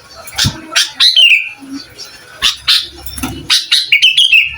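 Sooty-headed bulbul (kutilang) singing loudly: a run of sharp short notes with quick phrases that slide downward, one about a second in and another near the end.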